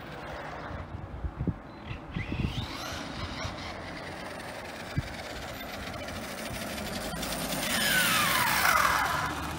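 Arrma Kraton RC truck, run without its body, driving on paving: a brushless motor whine rising as it accelerates a couple of seconds in, with scattered knocks. Near the end it is close and loudest, the whine falling steeply in pitch as it slows.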